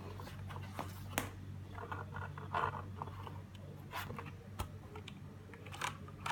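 A few scattered, separate key clicks and taps on a Redragon K300 mechanical keyboard with blue switches, over a steady low hum.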